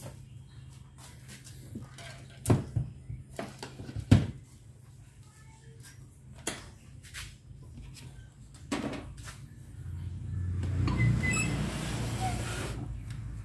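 Sharp knocks and clicks of test leads and a CRT TV's main circuit board being handled on a workbench, the loudest about 2.5 and 4 seconds in, over a low steady hum. From about 10 seconds in, a few seconds of scraping as the board is shifted across the bench.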